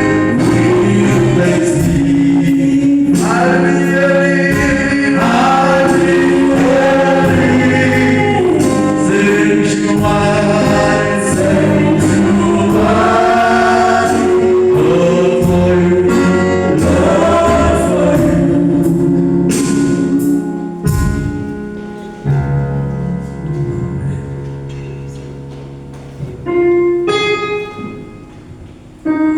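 Gospel music: a choir singing over instrumental backing. In the last third it drops to a quieter, held, fading chord, with a brief louder swell shortly before the end.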